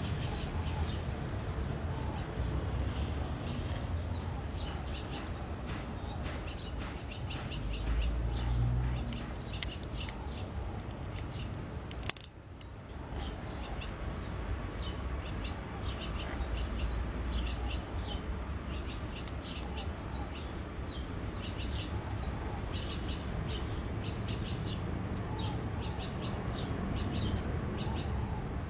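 Yellow-headed amazon parrot making many short, high clicks and chirps, with a few sharp knocks about ten and twelve seconds in.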